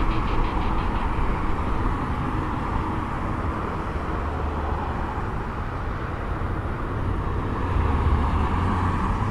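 Steady jet-engine noise of airliners on the airfield: a continuous low rumble with a hiss over it.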